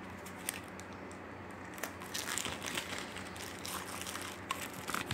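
Plastic wrapping crinkling as it is pulled off a new deck of tarot cards, with a few light clicks. The crinkling is quiet at first and grows busier after about two seconds.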